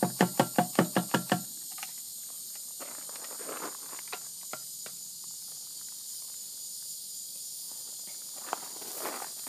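Fuel glugging out of a bottle into a riding lawnmower's fuel tank, about five quick glugs a second, stopping about a second and a half in. Then faint footsteps crunching on gravel.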